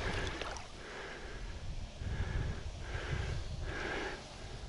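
A man breathing close to the microphone, about four soft breaths roughly a second apart, over a low steady rumble.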